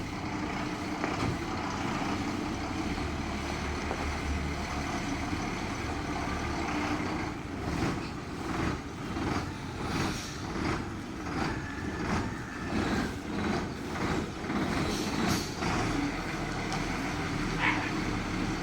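Ashok Leyland BS3 bus diesel engine running: a steady drone at first, then swelling and falling about once a second through the middle, with a brief sharp sound near the end.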